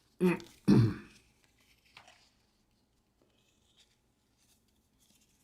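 A man clearing his throat, two short rough bursts about half a second apart in the first second.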